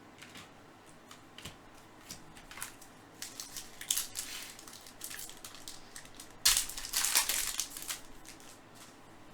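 Baseball cards and card packs being handled: scattered soft clicks and rustles, then a louder crinkling rustle about six and a half seconds in that lasts about a second and a half.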